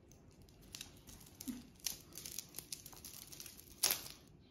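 A clear plastic bag crinkling as a baby grabs and handles it. It makes a run of short crackles starting about a second in, with the loudest crackle near the end.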